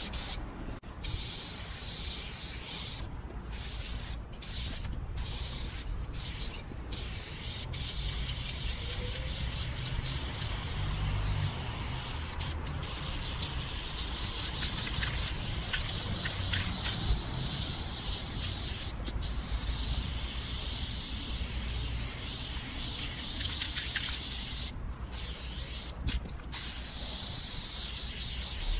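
Aerosol spray-paint can hissing as light blue paint is sprayed onto a wall, a steady hiss broken by short pauses as the nozzle is released, several in the first few seconds and a few more later.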